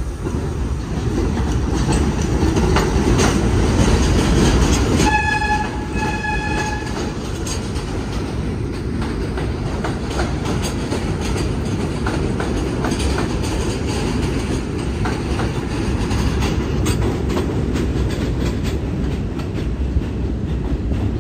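R32 subway train running through an elevated station, its wheels rumbling and clacking over the rail joints. About five seconds in it sounds its horn twice, in two blasts of about a second each.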